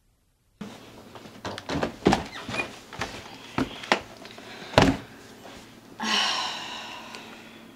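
Footsteps in sneakers on wooden stairs: about eight heavy, unevenly spaced steps, the last the loudest. About six seconds in, a ringing sound with several tones fades away over a second or so, leaving a low hum.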